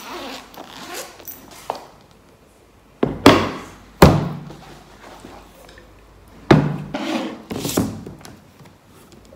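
Handbag and laptop being handled on a desk: several thunks as they are moved and set down on the tabletop, the loudest about three and four seconds in, with rubbing and rustling between.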